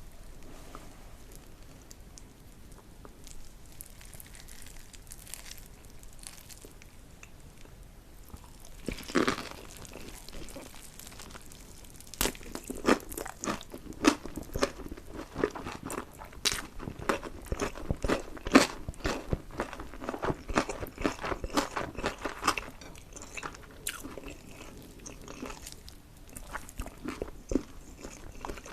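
Close-miked eating sounds: a person biting and chewing food, with sharp wet mouth clicks and crunches. Faint and sparse at first, then a loud bite about a third of the way in and a dense run of chewing through the middle.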